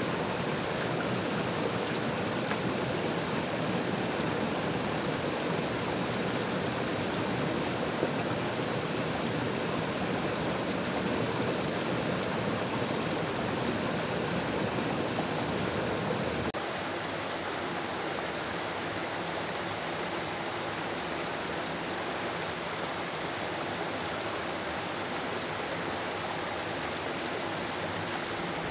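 Mountain creek running over rocks and small cascades: a steady rush of water, dropping slightly in level a little past halfway.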